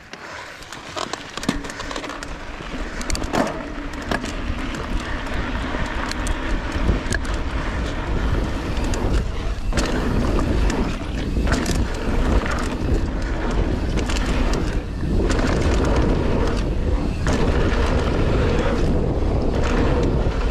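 Wind rushing over the camera microphone and knobby mountain-bike tyres rolling on a dusty dirt trail, with frequent knocks and rattles of the Polygon Siskiu T7 over the bumps. It grows louder over the first several seconds as the bike picks up speed.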